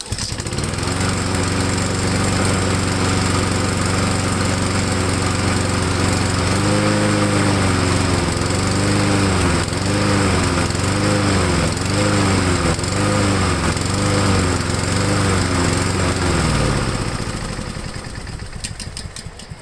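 Honda single-cylinder four-stroke lawn mower engine starting and running at a steady speed. About a third of the way in it begins surging up and down in speed, roughly once a second, then winds down and stops near the end. The engine is being run on choke because its carburetor is a little dirty.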